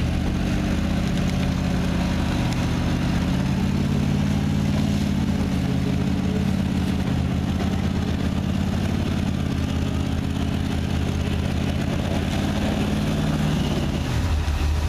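Vehicle engine running steadily under load, its pitch wavering slowly, then falling away near the end.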